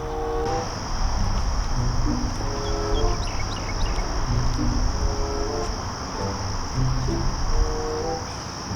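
Crickets chirring in a steady high trill that starts about half a second in, over background music of short low notes.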